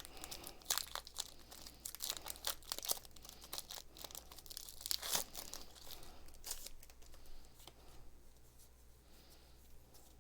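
Foil wrapper of a Pokémon TCG booster pack being torn open and crinkled: a rapid run of crackles and rips over the first six or seven seconds, then softer rustling.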